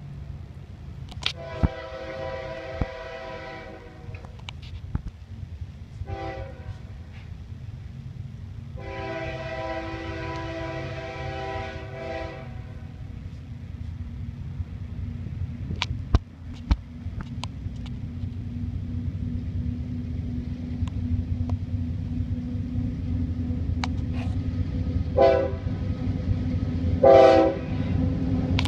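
CSX freight train's diesel locomotive horn sounding a long blast, a short one and another long blast, then two short blasts near the end. Underneath, the low rumble of the approaching locomotives grows steadily louder.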